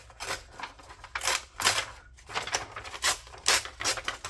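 A sheet of paper being torn by hand in several short rips with pauses between, the paper not giving way easily.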